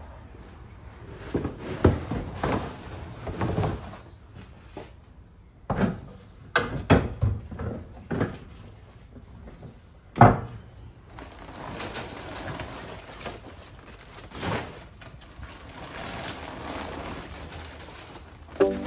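Clunks, knocks and scrapes of gear being unloaded from a box trailer as a wheelbarrow is lifted and pulled down. The loudest knock comes about ten seconds in, as the wheelbarrow comes down. Plastic tarp rustles near the end.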